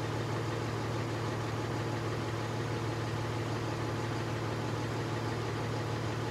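Truck engine idling, a steady low hum that stays even throughout.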